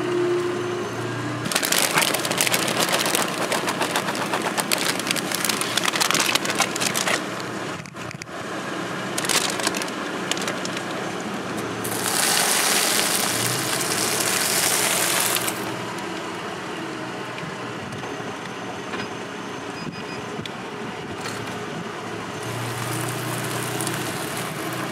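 A car tyre rolling slowly over crunchy things on asphalt, crackling and crunching in long stretches, with the car's engine idling underneath; near the end the tyre crackles as it rolls onto a pile of popcorn.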